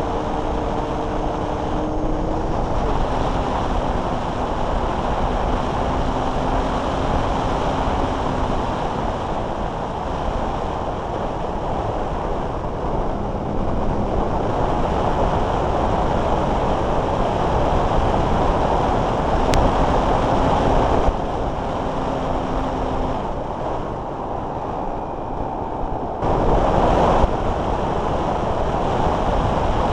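Airflow rushing over the onboard key-chain camera of a Multiplex Blizzard electric RC hotliner in flight, with faint humming tones from its motor coming and going at different pitches. The rush swells briefly near the end.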